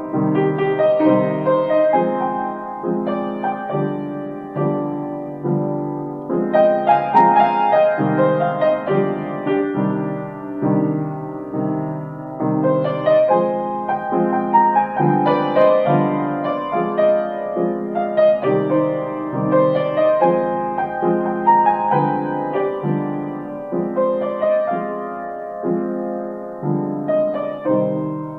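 Piano playing a slow, gentle instrumental intro of evenly repeated chords, each one struck and left to ring.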